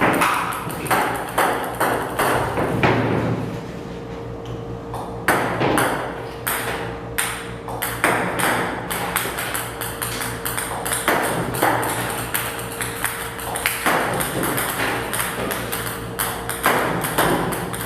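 Background music of quick, repeated struck or plucked notes over a steady held tone.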